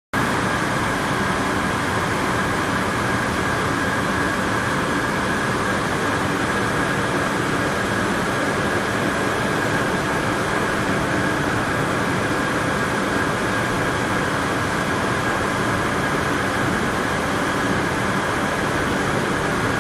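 Several circular weaving looms running at once, a loud, steady mechanical din with a constant high whine running through it.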